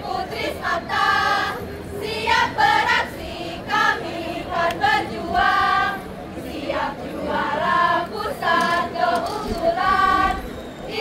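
A group of girls singing together in unison in short, rhythmic phrases, a marching team's chant-song.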